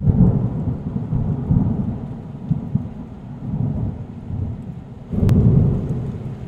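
Thunder rumbling over steady rain. A louder rumble with a sharp crack comes about five seconds in.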